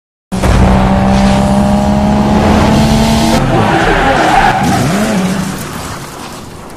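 Car tyres squealing in a skid, with the engine running. The sound changes about three and a half seconds in and fades away over the last second or so.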